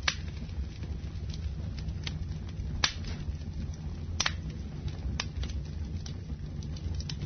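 Wood fire in a fireplace crackling, with sharp irregular pops a second or two apart over a steady low rumble.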